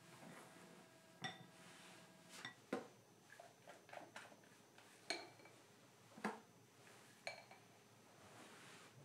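Spatula knocking against glass mixing bowls while meringue is scooped in: about half a dozen light clinks, each with a short glassy ring, and softer taps between them.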